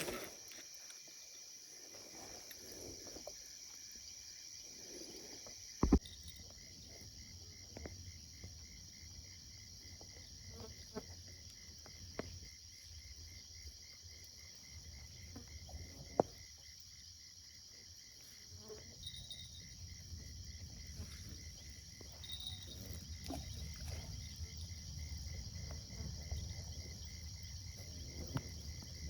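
Night insects, crickets among them, trilling steadily in high-pitched chorus, one of them pulsing rapidly. A few sharp knocks cut through, the loudest about six seconds in.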